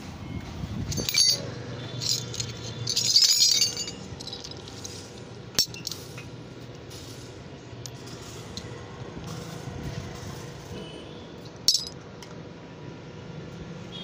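Small metal grill ornaments, cup-shaped pieces and leaves, clinking against each other, a dense run of clinks about two to four seconds in and single sharp clicks later, over a steady low hum.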